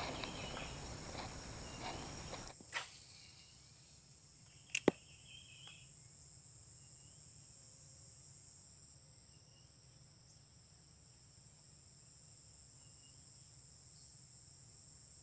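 Steady high-pitched drone of insects in the swamp. A noisy rustle fills the first couple of seconds and stops abruptly, and two sharp clicks come about three and five seconds in.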